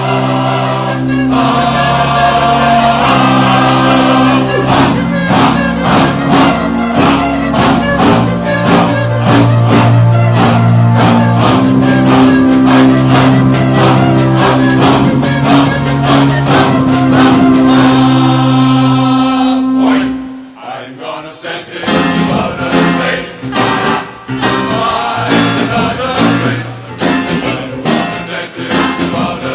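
Large choir singing with a percussion band drumming a steady rhythm beneath it. About two-thirds of the way through the full sound breaks off, and a quieter, sparser passage follows.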